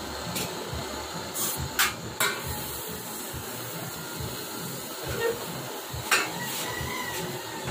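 Gas torch flame hissing steadily. Over it come a handful of sharp metallic taps, most of them in the first two and a half seconds and one about six seconds in.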